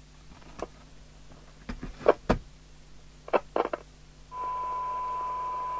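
A few sharp clicks and knocks as a speaker lead is plugged into a Radiomobile CB201 CB radio. About four seconds in, a steady high-pitched test tone with hiss starts from the speaker: the receiver is working, reproducing a tone-modulated test signal.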